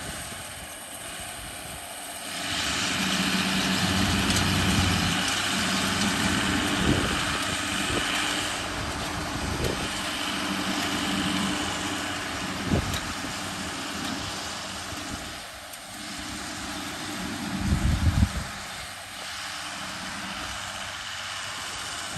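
Tractor engine running steadily while pulling a working round baler, with machinery whirring over the engine hum. A few sharp knocks come through, and near the end there is a heavier low rumble.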